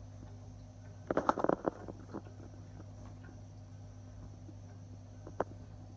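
Clicking and rattling of a clip-on phone camera lens being handled right at the phone's microphone: a quick cluster of clicks about a second in and a single sharp click near the end, over a steady low hum.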